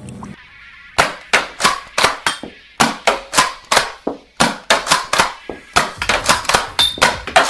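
Black shotgun-style toy blaster firing in quick succession: a string of sharp snapping shots, about three a second, starting about a second in.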